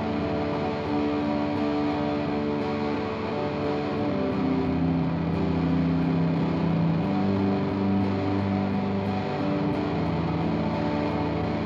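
Electric guitar played through a small amplifier: an instrumental passage of chords and held notes that change every second or so, with no singing.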